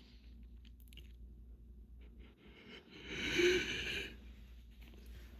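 A loud, wheezy sniff through an allergy-irritated nose, about a second long, some three seconds in, over the steady low hum of a fan; a few faint clicks and rustles come before it.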